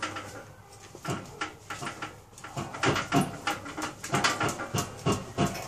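Car's factory lug wrench on a wheel nut clanking and knocking as a man stands and bounces his weight on it; the nut is overtightened and does not give. The knocks are sparse at first and come several a second in the second half.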